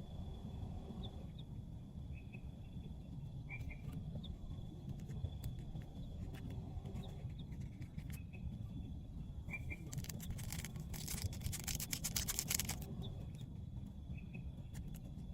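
Steady low rush of rain with short chirps repeating every second or two and a thin steady high tone. About ten seconds in, a few seconds of dense crackling rises over it, then stops.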